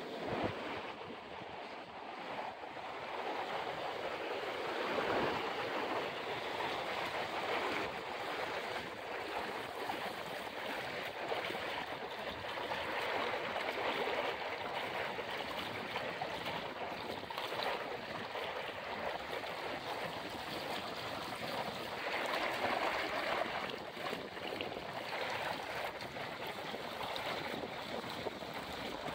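River water flowing and rushing steadily.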